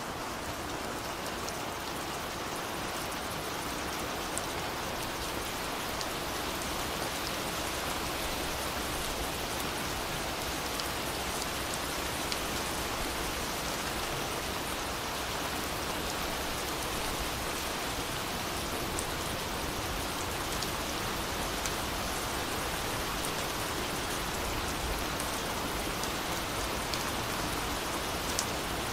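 Steady recorded rain: an even hiss with faint, scattered drop ticks, used as the masking track of a layered subliminal affirmation audio.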